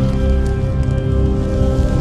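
Dark, ominous intro music: held notes over a deep rumble.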